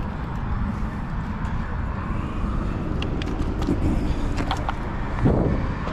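Strong wind buffeting the microphone: a steady low rumble throughout, with a few small clicks in the middle and a brief thump near the end.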